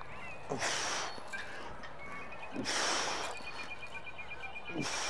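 Hard breathing of a man working a steel mace through 360s and shoulder presses: three sharp, forceful breaths about two seconds apart, in time with the swings.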